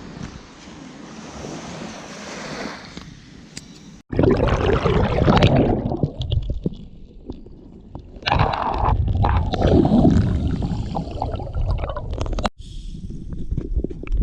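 Seawater sloshing and splashing close to the microphone, loud and uneven, across several short clips joined by abrupt cuts.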